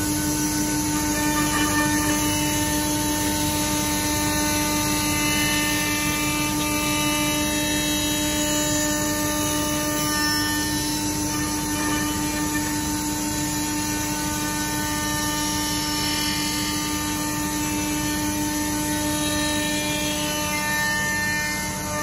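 CNC router spindle running steadily as it machines a Japanese cedar slab: a constant whine with a steady lower hum over the noise of the cut.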